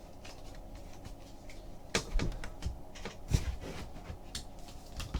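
Trading cards being handled and flipped on a table: scattered light clicks and taps, the sharpest about two seconds in and again past three seconds.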